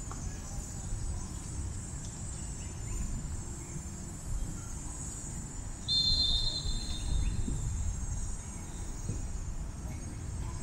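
Crickets chirring steadily over a low rumble. About six seconds in, a single shrill whistle sounds for nearly two seconds and is the loudest thing in the clip.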